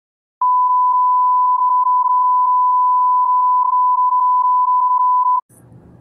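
A single long, steady electronic beep at one pitch, about five seconds, starting with a click about half a second in and cutting off suddenly near the end, followed by faint room noise.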